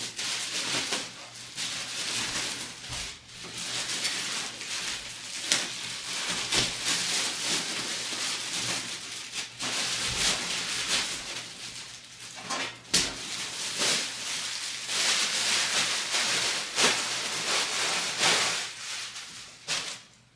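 Rustling and handling noise from a PC case and its packaging, with many scattered clicks and knocks; it dies away just before the end.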